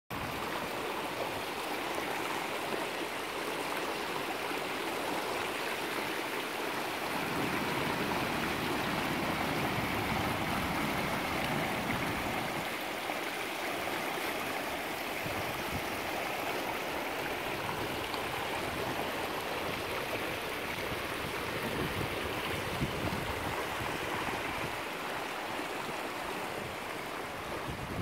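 Small river flowing in a steady babbling rush of water, a little louder and fuller for a few seconds in the middle.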